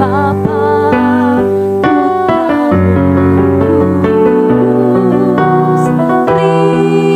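Electronic keyboard playing a slow instrumental piece: held chords under a melody, some of its notes wavering.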